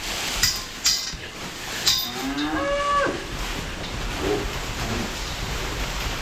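A young dairy animal moos once, a short call that rises in pitch and then holds, about two seconds in. A few sharp knocks come in the first two seconds, over steady background noise.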